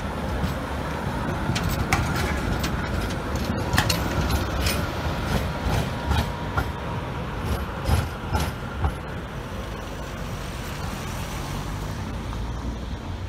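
Tatra KT4 articulated tram passing close on street track and pulling away. A low rumble from the running gear carries a string of clacks and knocks as the wheels cross joints in the track, then eases off as the tram moves away.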